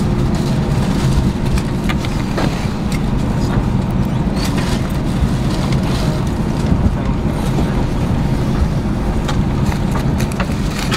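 Airbus A320 cabin noise while taxiing in on idle engine thrust: a steady low rumble, with scattered light clicks and rattles.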